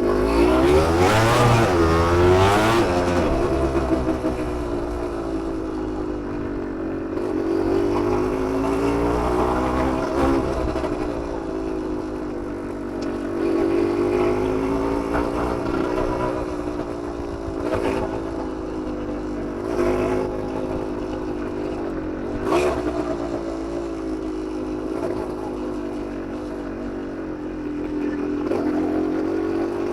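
Freshly rebuilt 1991 Suzuki TSR 125's two-stroke single-cylinder engine running, its revs rising and falling again and again, with a sharp rev about a second in and a few short cracks later on.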